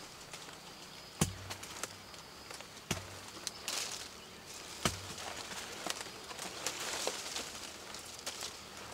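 Sapodilla fruit being picked by hand from the tree: leaves and branches rustling, with three sharp clicks about two seconds apart.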